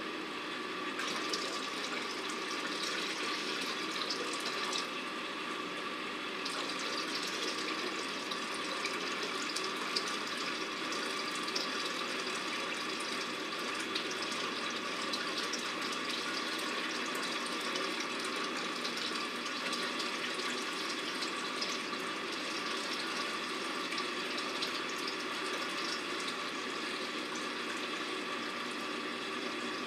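Water poured steadily from a pitcher into an aquarium sump tank, splashing onto the water surface, with a short let-up about five seconds in. Underneath is the steady hum of the running protein skimmer's pump.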